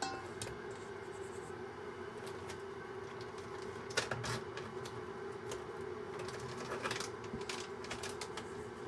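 Hands kneading dango dough in a bowl: scattered light taps and clicks, a sharper one about four seconds in, over a steady background hum.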